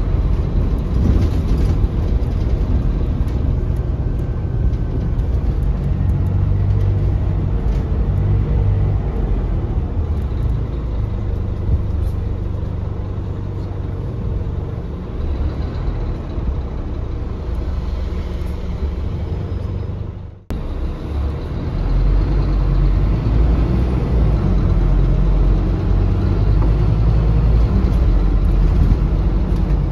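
Scania K280UB city bus heard from inside the passenger cabin: the Scania DC9 five-cylinder diesel drones steadily with road noise. The sound eases off for a while, cuts out sharply for a moment about two-thirds through, then comes back stronger and deeper.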